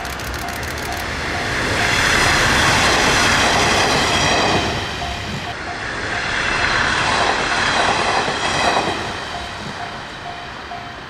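Two-car KiHa 110 diesel railcar set passing over a level crossing, its noise swelling twice as the cars go by. The crossing's warning bell rings steadily underneath, about twice a second.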